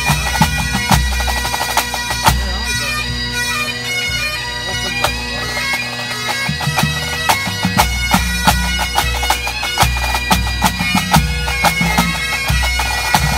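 A full pipe band plays a medley: Great Highland bagpipe chanters carry the tune over steady drones, with snare drum strokes and a bass drum beat underneath.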